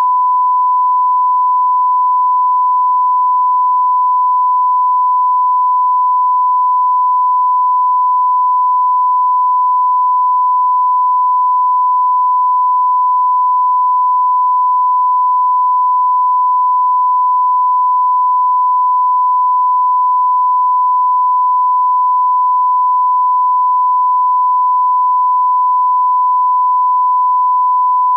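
1 kHz line-up tone that accompanies broadcast colour bars, one pure, steady, unbroken beep used to set audio levels before a programme.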